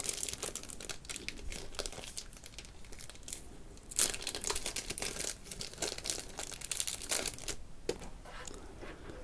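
Thin clear plastic bag crinkling and rustling as it is handled by hand, in many quick crackles, loudest about four seconds in.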